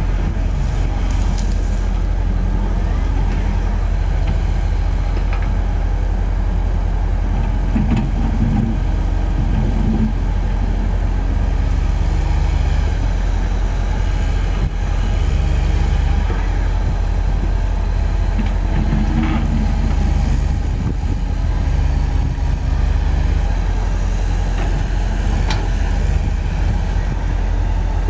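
Komatsu PC130F-7 excavator's diesel engine running steadily as the machine swings and digs, its note stepping up and down every few seconds as the hydraulics take load. A few faint knocks come through over it.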